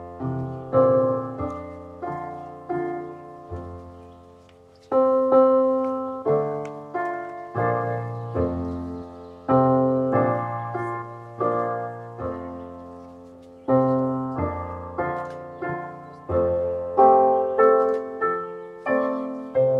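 Solo piano playing a slow, quiet piece: chords and melody notes struck about once a second, each ringing and fading away, with a brief lull about four seconds in.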